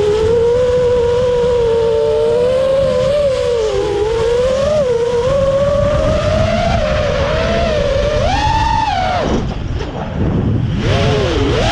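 FPV quadcopter's brushless motors and Ummagawd Remix propellers whining, heard from on board, the pitch wavering with throttle. About eight and a half seconds in the whine climbs sharply, then falls away steeply as the throttle is chopped, and spools back up near the end.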